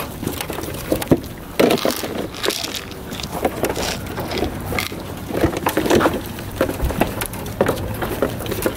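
Goats crowding a wire-mesh fence and nibbling feed from a hand: a run of irregular clicks, knocks and rustling close by.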